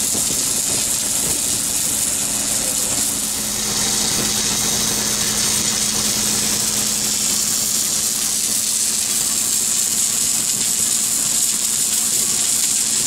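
Submerged arc welding rig running: a steady machine hum with a constant hiss, the arc buried under granular flux.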